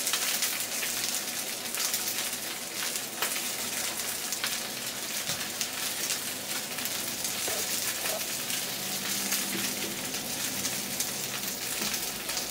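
Steady crackling sizzle of hot oil left in the skillet that the chicken was just seared in.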